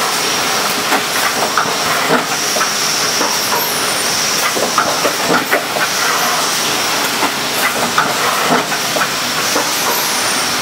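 Thermonox BTBR10 cup form-fill-seal machine running: a steady air hiss over a constant clatter of clicks and clacks from its mechanism. A high whine comes and goes, and a short high falling squeal sounds twice, about three seconds in and near the end.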